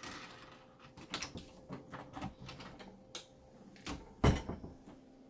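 A series of light clicks and knocks, a few seconds apart, with one louder, dull thump about four seconds in.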